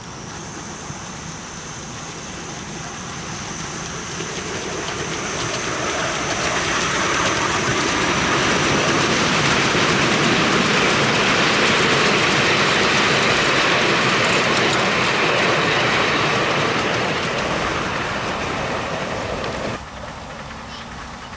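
Miniature railway passenger train passing close by, its carriage wheels running on the rails. The sound swells as the train approaches, holds at its loudest through the middle, fades as it goes by, and drops off suddenly near the end.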